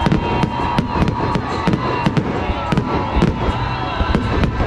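Aerial fireworks shells bursting in quick succession: several sharp bangs a second over a continuous low rumble.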